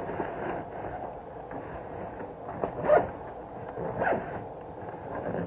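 Zipper on a child's fabric backpack being pulled in a few short strokes, the loudest about halfway through.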